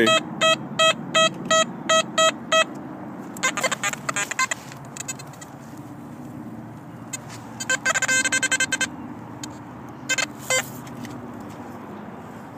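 XP Deus metal detector giving a string of repeated high target beeps, about three a second, as the coil is swung back and forth over a target locking on at 83, then further bursts of quicker, chattering tones later on.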